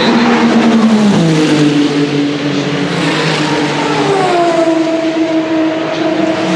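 Race car engine running at speed on track. Its pitch drops sharply about a second in, then climbs steadily and holds high.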